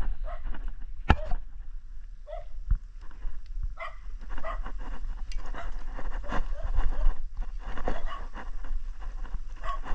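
A dog barking repeatedly in short calls, with a sharp click about a second in and a dull knock near three seconds.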